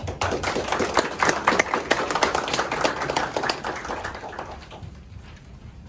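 Small audience applauding: a dense patter of hand claps that starts at once and dies away after about four seconds.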